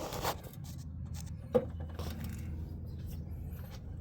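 A few light clicks and knocks from handling the plastic coolant reservoir tank as it is set into its mount, the sharpest about a second and a half in, after a short rustle at the start, over a steady low hum.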